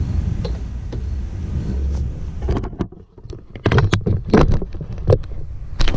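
Clicks, knocks and rubbing as gloved hands push rubber spark plug caps back onto the plugs of a mower's Kawasaki engine, which is not running. There is a low rumble of wind on the microphone at first, and the handling noises come in a quick run from about two and a half seconds in.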